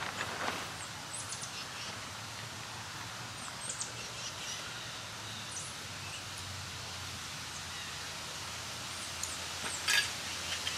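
Small birds chirping: scattered short, high chirps over a steady outdoor hiss. A sharp knock near the end is the loudest sound.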